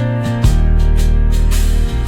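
Background music: a plucked guitar and a steady beat, with a deep bass note changing about half a second in.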